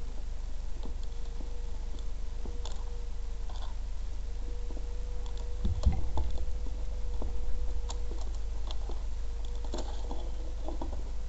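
Gloved hands handling a small metal phone-holder rack with wing-nut screws: scattered light clicks and taps of metal parts, with a heavier knock about six seconds in, over a faint steady hum.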